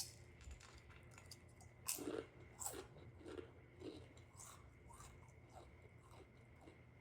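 Close-up chewing of crunchy snack food: a run of short, uneven crunches, about one or two a second, clearest from about two to four seconds in and fading after.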